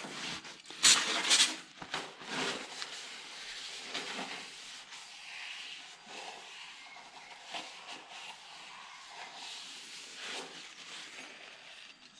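Aerosol brake cleaner sprayed into the cylinder bores of a BMW N52 engine block in two short, loud hisses about a second in, followed by a shop towel wiping and rubbing inside the bores.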